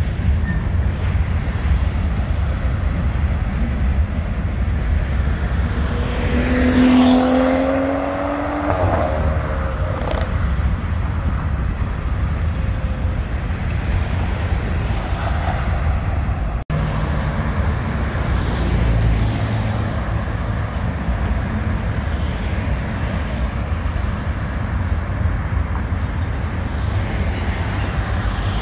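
Steady low rumble of city road traffic with a freight train crossing the overpass. About seven seconds in, a louder passing engine note rises slightly in pitch and then fades.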